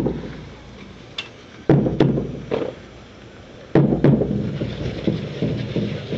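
Squad of drill recruits stamping their boots in unison on a paved parade square: sharp thuds in small groups, five or six in all.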